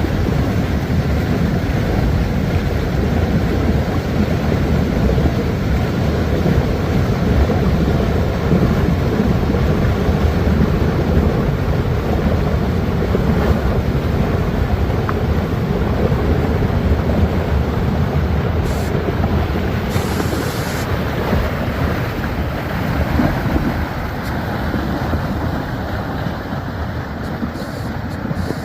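Floodwater of a flash flood rushing down a wadi channel, a loud, steady rush that eases slightly near the end.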